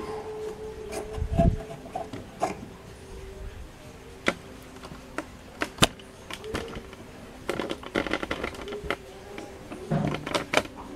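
Handling noises around an overlock machine on its table: scattered clicks, a dull knock and bouts of rubbing as parts are handled, over a faint steady hum.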